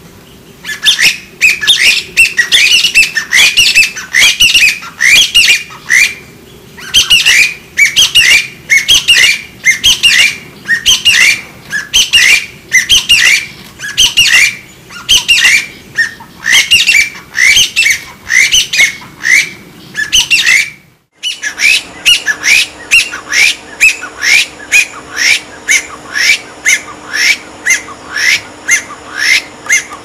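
Chinese bamboo partridge calling: loud, high-pitched notes, each sliding upward, repeated two to three times a second in long series. The calling stops briefly about two-thirds of the way through, then starts again at a slightly faster pace.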